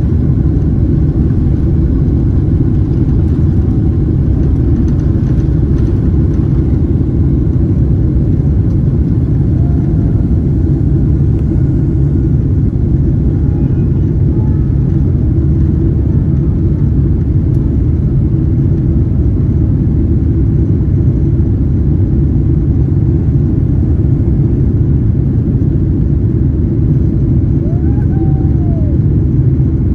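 Boeing 777-300ER's GE90 engines at takeoff thrust, heard from inside the cabin behind the wing: a loud, steady low rumble through the end of the takeoff run, liftoff and the initial climb.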